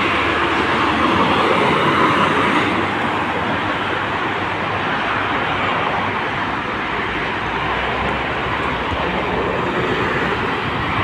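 Steady toll-road traffic noise: the rush of tyres and engines of a bus, cars and trucks passing below at speed.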